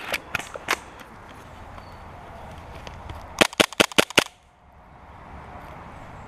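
An airsoft gun firing a quick string of about six sharp shots in under a second, a few seconds in, after some fainter clicks near the start; the sound cuts off suddenly just after the shots.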